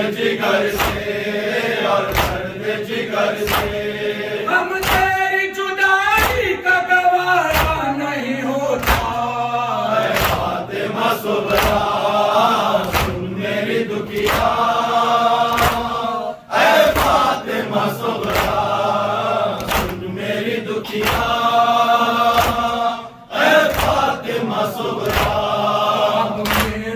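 Men chanting an Urdu noha together, a lament sung in unison, with an even beat of open-hand strikes on the chest (matam) about three every two seconds.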